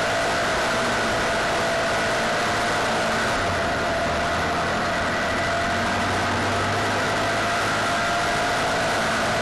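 Onboard sound of a 602 cc dirt-track racing car's engine held at high revs under racing load, its pitch nearly steady, over heavy wind and track noise.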